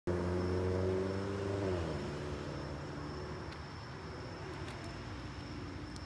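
Amtrak passenger locomotive's air horn sounding a multi-note chord. Just before two seconds in its pitch drops and it fades out, leaving the steady rumble of the passing train.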